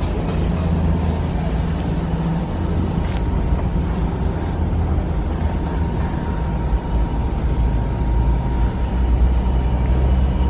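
Cat 330GC hydraulic excavator's diesel engine running steadily, a low even drone with a faint steady whine above it.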